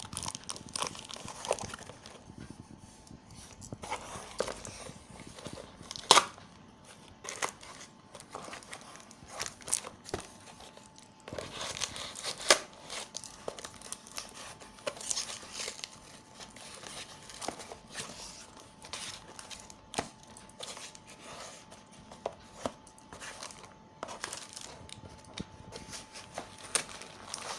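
Product box being cut and torn open and its packaging handled: irregular tearing, crinkling and rustling with many sharp clicks, and one loud snap about six seconds in.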